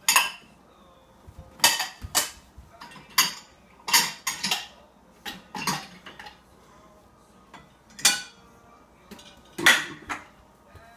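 Dishes clattering as a dishwasher is unloaded: bowls and utensils knocked and stacked in a dozen or so separate clinks and clanks at irregular intervals, some with a short ring.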